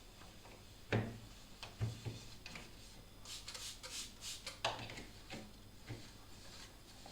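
Objects being handled in a refrigerator during cleaning: several light knocks and clunks as things are set down or moved, with a short run of rubbing and rustling about three to four and a half seconds in.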